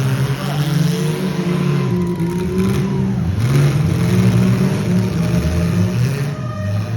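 Several demolition derby cars' engines running and revving together, their pitches rising and falling, loud and continuous with no break.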